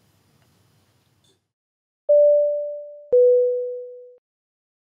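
Two-note descending electronic chime: a clean high tone, then a slightly lower one about a second later, each starting sharply and fading away, like a 'ding-dong' logo sting.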